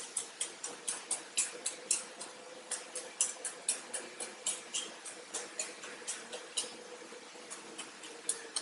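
Wooden chopsticks clicking against a glass baking dish as they jab at and break up cream-soaked crackers, about three or four sharp clicks a second.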